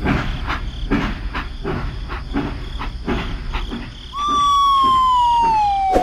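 Toy steam locomotive running on its plastic track, clicking about twice a second. About four seconds in, a loud whistle starts and slides slowly down in pitch.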